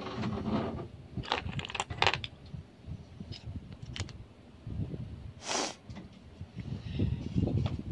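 Small plastic doll accessories clicking and rattling as they are handled and picked through in a plastic bin, with a few sharp clicks and a brief rustle about five and a half seconds in. Low handling rumble runs underneath.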